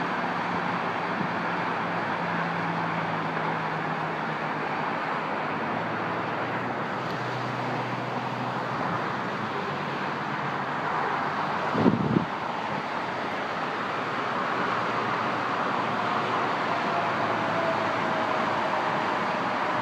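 Steady road traffic noise from the streets below, with the low hum of passing vehicles now and then. About twelve seconds in there is a brief bump, the loudest moment.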